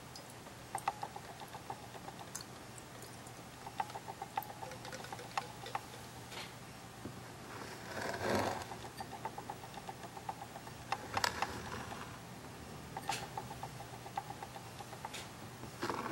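A drinking glass of water being handled and slid across a plastic-covered tabletop: a few knocks and scrapes, the loudest about eight seconds in, another about eleven seconds in and one at the end. Under them run a steady low hum and runs of quick light ticking.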